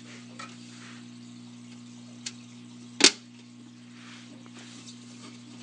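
Clear plastic aquarium breeding box being handled: a few light plastic taps and one sharp plastic click about three seconds in, over a steady low hum.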